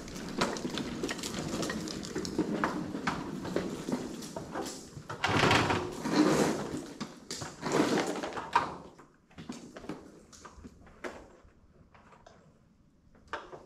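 Knocks, scrapes and footsteps as a heavy wooden 2x12 board is shifted, butted up and set in place, while a man climbs a stepladder. The handling is busiest in the first two-thirds, then thins to a few scattered knocks, with one sharp knock near the end.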